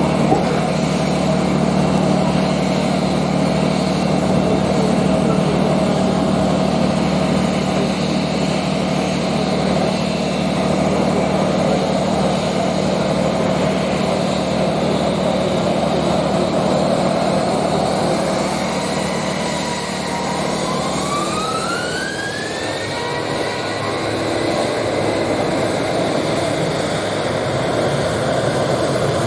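Boeing 737 airliner's jet engines running with a steady drone, then spooling up for takeoff: a whine rises from about 19 seconds in over roughly four seconds and holds at a higher pitch as the aircraft starts its takeoff roll on the wet runway.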